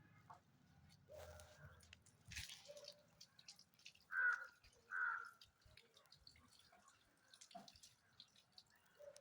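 Two short animal calls, less than a second apart, about four seconds in, over faint scattered clicks and rustles.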